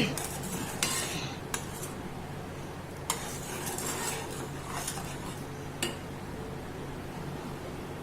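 A metal spoon stirring in a cooking pan: scattered clinks and scrapes against the pan's sides.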